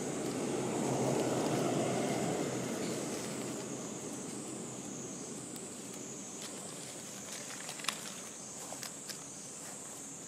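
Outdoor ambience: a low rushing noise swells and fades over the first few seconds, under a steady high drone, with a few light clicks near the end.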